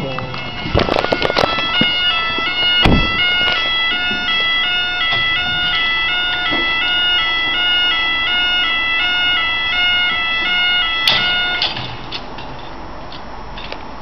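UK level-crossing yodel alarm warning as the barriers lower: a two-tone electronic wail that switches between a high and a low pitch about twice a second, then stops suddenly near the end. Handling knocks and bumps sound over its start.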